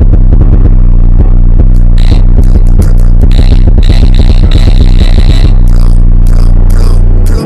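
Slowed, heavily bass-boosted music with reverb, very loud: a deep bass drone holds underneath a fast, clicking rhythm, and bright hissing hits join about two seconds in. The bass drops out near the end.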